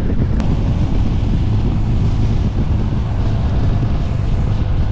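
Heavy wind rushing over the microphone, with a single-cylinder TVS Apache RTR 200 4V motorcycle engine running steadily underneath at cruising speed. A brief click comes about half a second in.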